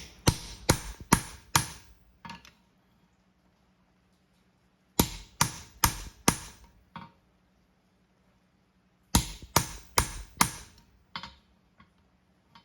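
Hammer striking a nail-hole punch to drive nail holes through a hot steel horseshoe: three bursts of four or five sharp ringing blows, about three a second, with pauses between.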